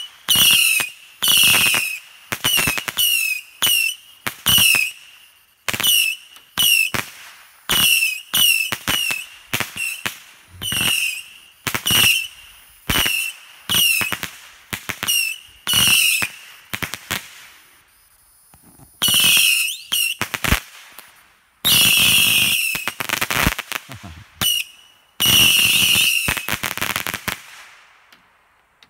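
A Saturn missile battery firing small rockets in quick succession: each one is a short whistle that dips slightly in pitch, with sharp pops among them. After a brief lull about two-thirds of the way through, the volley resumes in denser clusters and then stops.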